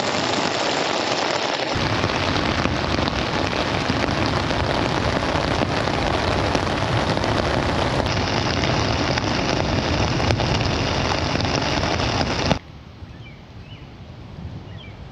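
Heavy rain falling on a tent, super loud. About twelve seconds in it cuts off abruptly to a much quieter outdoor background with a few faint chirps.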